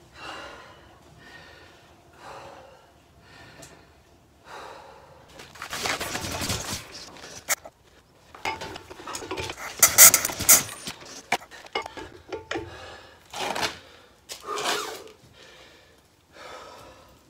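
A man breathing hard and gasping while he hand-cranks a Lister stationary diesel engine, with metal clanks from the starting handle on the crankshaft; the engine does not fire. The breaths and clanks come irregularly and are loudest about halfway through.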